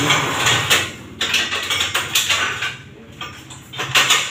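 Gym cable machine being adjusted by hand: irregular metallic clanks and rattles from the pulley carriage and its fittings on the steel column, in several bursts.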